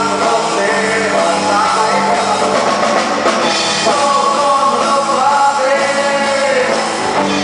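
Rock band playing live: a male singer over electric guitars and a drum kit.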